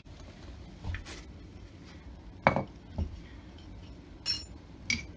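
Small metal brake parts and a hand tool being set down on a parts tray: about five separate clinks and knocks. The loudest comes midway, and one near the end rings briefly like struck metal.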